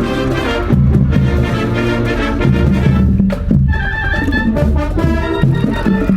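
High-school wind band playing live: brass in full chords, with trumpets and trombones over heavy low brass.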